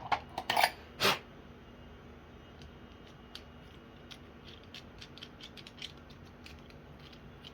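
Small metal tools being handled: a few sharp clicks and rattles in the first second, then light scattered ticks and scrapes. This fits drill bits being picked out and a bit being worked by hand in a small plastic probe.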